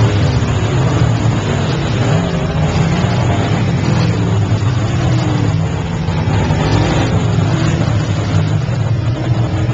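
Dirt-track race cars' engines running loud on the oval, their pitch rising and falling as they rev through the laps.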